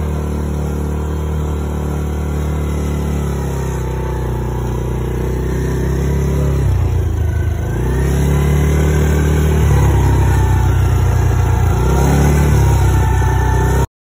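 Four-wheeler (quad bike) engine running at low speed. Its pitch dips and picks up again about seven seconds in and once more near the end, and the sound cuts off abruptly just before the end.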